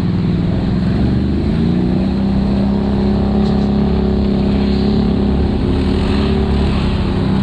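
Honda ATV engine running under throttle: the revs rise about a second in, then hold steady.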